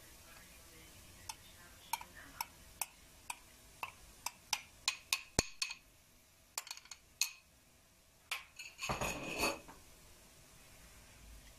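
A metal spoon tapping and clinking against a glass bowl about fifteen times, knocking ground walnuts out into a frying pan, followed a little later by about a second of louder scraping.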